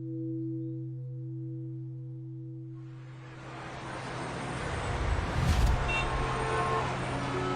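Recorded ringing of a huge bronze temple bell: its long lingering hum of a few steady tones, pulsing slowly as they beat. About three seconds in, a rising rush of noise swells up over the fading hum.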